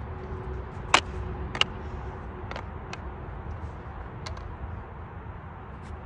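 Rubber hockey puck knocking against a tape-wrapped hockey stick as it is batted up in the air: about six sharp, unevenly spaced taps, the two loudest close together about a second in, over a steady low rumble.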